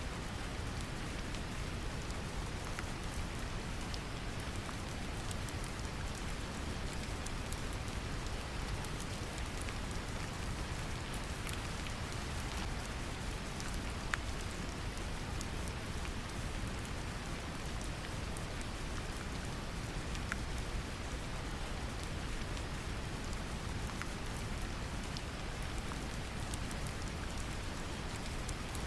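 Steady brown noise, a deep even hiss strongest in the low range, mixed with gentle rain and its scattered drop ticks.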